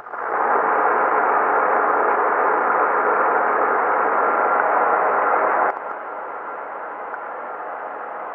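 CB radio receiver static through its speaker: loud, even hiss that drops suddenly to a quieter steady hiss about two-thirds of the way through.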